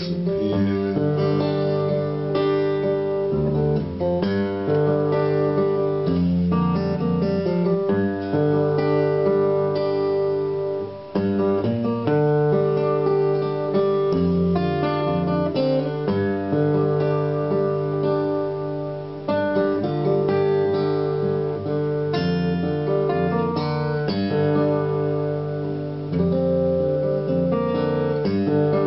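Solo acoustic guitar played without singing, bass notes moving under a melody line.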